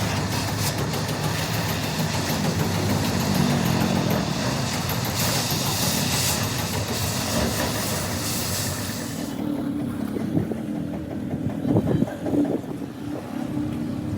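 A truck engine running steadily, with a hiss over it that stops about nine seconds in.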